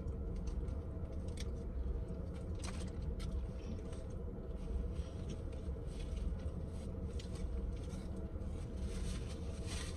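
Faint crinkling of a plastic bag and small scattered clicks and crackles as boiled crawfish are peeled and eaten by hand, over a steady low hum.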